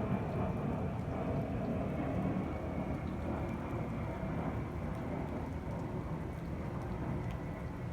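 Jet airliner engines rumbling as the aircraft passes, easing off slowly, with a faint high whine that drifts down in pitch.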